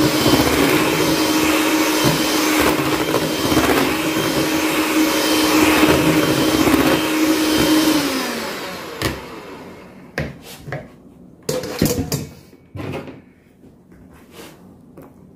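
Electric hand mixer running steadily, its beaters whipping a thin liquid gelatin and cream mixture in a plastic bowl. About eight seconds in it is switched off and its hum slides down and fades, leaving a few scattered knocks.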